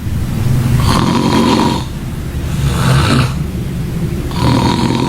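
A person snoring loudly: three long, rough, fluttering snores in a row, each about a second long.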